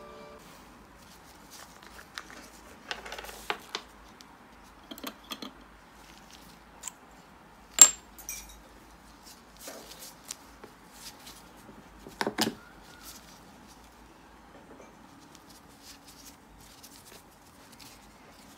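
Small plastic nail-supply containers and a gel polish pot being handled and set down on a marble tabletop: scattered light clicks and taps. The loudest is a single sharp click a little before halfway, followed about four seconds later by a brief cluster of knocks.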